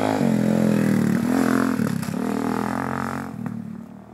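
Dirt bike engine revving up and down a few times as the bike rides past, then fading away after about three seconds.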